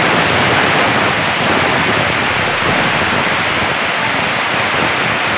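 Aluminium stovetop pressure cooker blowing its whistle: a loud, steady hiss of steam venting from the weight valve, the sign that the cooker has come up to pressure.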